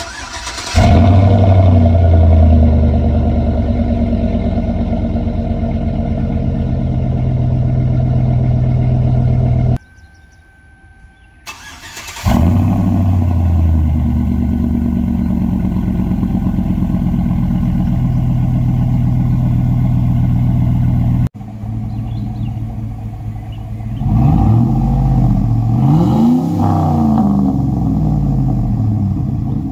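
2005 Chevy Silverado's 5.3-litre V8 through a Flowmaster 10 Series exhaust. It cold-starts on stock manifolds, catching within a second into a steady fast idle, and after a short break cold-starts again with short-tube headers fitted. Then, on stock manifolds, it idles and is revved a few times, each rev rising and falling.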